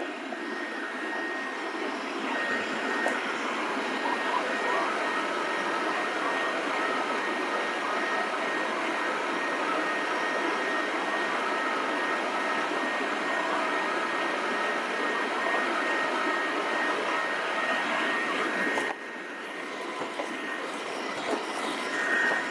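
Lifro RX9 Plus robot vacuum running: a steady whir with a faint high whine, dropping in level for a moment about nineteen seconds in.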